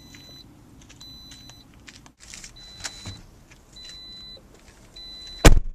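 A car's electronic warning chime beeping repeatedly, one short high tone about every second and a half. Near the end comes one short, very loud burst.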